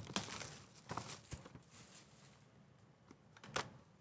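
Faint rustling and a few light taps and scrapes as a cardboard trading-card hobby box is opened by hand and its lid lifted.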